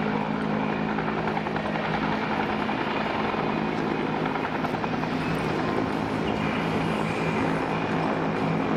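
Two Bell UH-1H Huey helicopters flying past together, their turbine engines and rotors making a steady, continuous sound.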